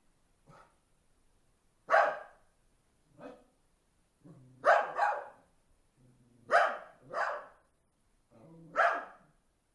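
A dog barking, about seven loud barks spread through the clip, some in quick pairs. A low growl leads into several of them.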